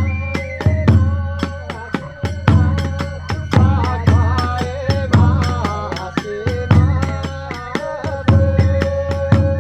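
Kagura hayashi ensemble playing: a large drum beating heavy strokes about once a second under a fast, steady clash of small hand cymbals (tebyoshi), with a bamboo flute holding and bending a melody line above.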